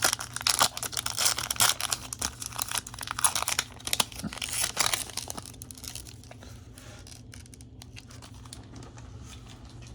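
Foil wrapper of a Pokémon trading-card booster pack being torn open and crinkled in the hands, in dense crackly bursts for about the first five seconds, then only faint handling over a low steady hum.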